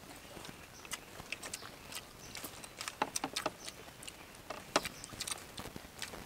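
Eating sounds: chopsticks clicking and scraping on ceramic plates, with chewing. Sharp, irregular clicks, bunched about three seconds in, the loudest near five seconds in.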